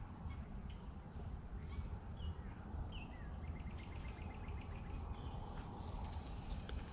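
Wild birds chirping and calling in short high whistles, with one quick rattling trill a little after three seconds in, over a steady low rumble.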